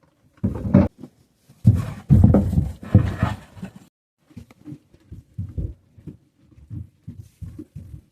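Sheep close by in a small shed: two loud rough sounds in the first four seconds, then a run of quieter short sounds, about three a second.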